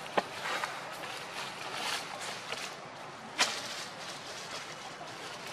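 Rustling outdoor noise with two sharp clicks, one just after the start and a louder one about three and a half seconds in.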